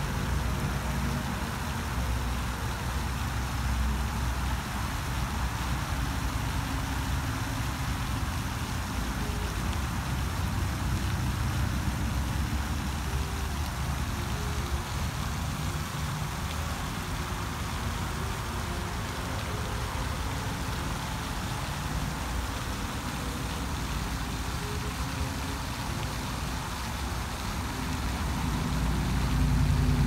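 Floating pond fountain spraying water: a steady hiss of falling spray splashing on the pond surface, with a low steady rumble underneath.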